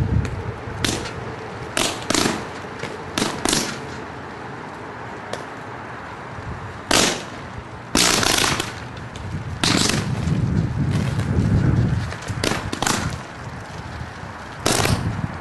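Overhead power line arcing at a utility pole: irregular sharp cracks and snaps, some single and some in quick pairs, with a longer sizzling burst about eight seconds in.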